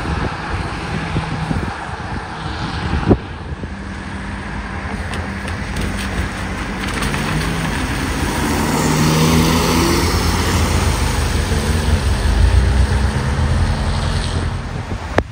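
A rally car driving past, its engine growing louder over several seconds and loudest near the end, with wind buffeting the microphone. A sharp click a few seconds in.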